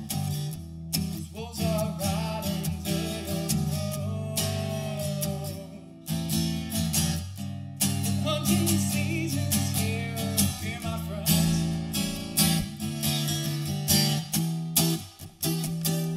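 Acoustic guitar strummed in a steady rhythm, with a man singing over parts of it.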